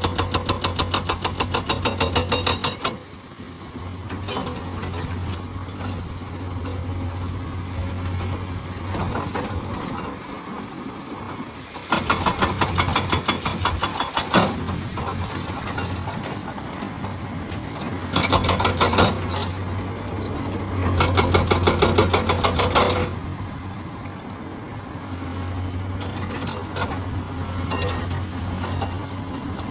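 Hydraulic breaker on a Komatsu PC200 excavator hammering rock in bursts of rapid, evenly spaced blows. One burst stops about three seconds in, and others come around twelve, eighteen and twenty-one seconds in. The excavator's engine runs steadily between the bursts.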